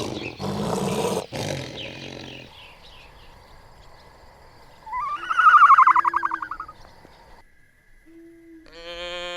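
A series of animal calls: a rough, noisy call in the first two seconds, then the loudest, a high quavering call that rises and falls from about five to seven seconds in, and a short pitched call near the end.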